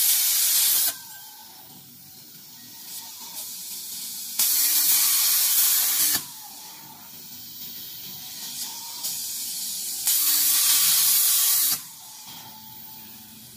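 CNC metal-cutting machine cutting 2 mm thin metal plate: loud hissing from the cutting head comes in three bursts of about two seconds each. Between the cuts, much quieter machine noise runs.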